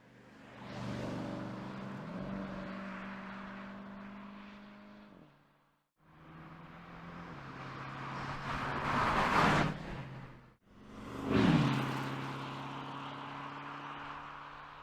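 2017 Porsche Panamera Turbo's 4.0-litre twin-turbo V8 driving past in three separately cut shots, each ending abruptly. The engine note swells as the car approaches and fades as it moves away, and in the last pass it drops sharply in pitch as the car goes by close.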